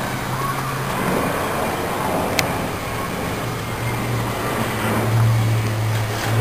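Motor vehicle noise with a low droning hum that fades after the first second and swells again in the second half, with a single sharp tick about a third of the way in.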